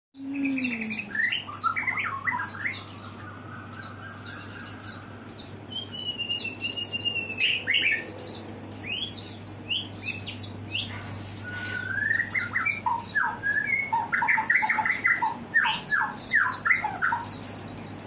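Small caged songbird singing a long, continuous run of rapid chirps, whistled notes and fast trills, with a faint steady low hum beneath.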